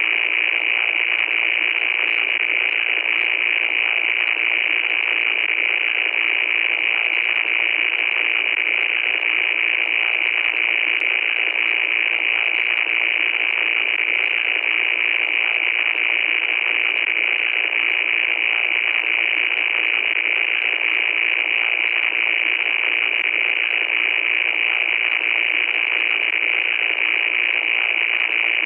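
Loud static noise: a steady, unbroken hiss that sounds thin, with no bass and no top end, its harshest part high up. Faint specks of crackle ride on top.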